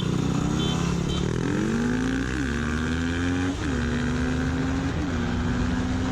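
Two-stroke GPX TSE250R dual-sport motorcycle engine on its stock exhaust, accelerating hard at full throttle. The engine pitch climbs, then drops sharply at each upshift, three times.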